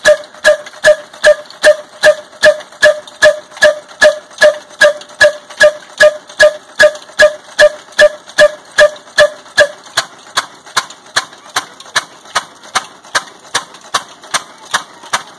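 Old black single-cylinder stationary diesel engine with a big flywheel, running at slow speed while driving a flour mill (chakki), firing in a steady beat of loud sharp knocks a little over twice a second. About ten seconds in the knocks turn lower and lose their ringing edge.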